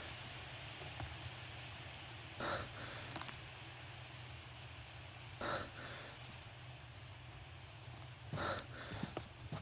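A cricket chirping steadily, about two short pulsed chirps a second, over a low steady hum. A duller, softer sound comes three times, about three seconds apart.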